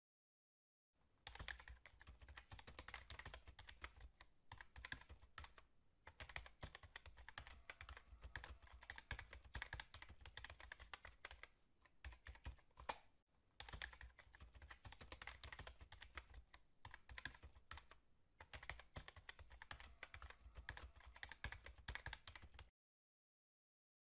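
Fast typing on a computer keyboard, a dense run of key clicks with short breaks and a longer pause about halfway through. It starts about a second in and stops shortly before the end.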